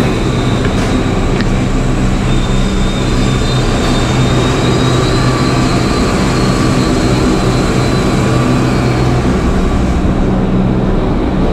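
Diesel train engine idling steadily at the platform, a constant low drone with a faint high whine above it.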